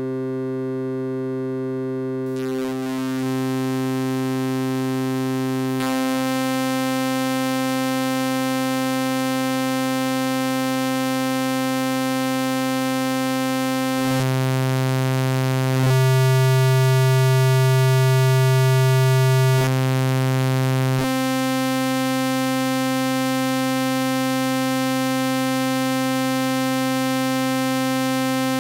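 A single sustained synthesizer note at one steady low pitch, its waveform being reshaped from a rounded near-sine into a sawtooth. A couple of seconds in, it turns bright and buzzy. Around the middle, the low bass underneath swells louder for several seconds as sine is mixed into the saw, then eases back.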